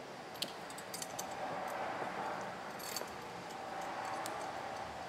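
A few light metallic clicks and clinks as the steel halves of a crawler steering clutch assembly are handled and fitted together.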